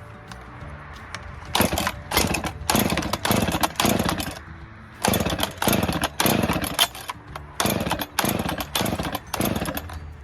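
Chainsaw being pull-started: the starter cord is yanked about fifteen times in quick runs of four to six pulls, and the engine does not catch and run.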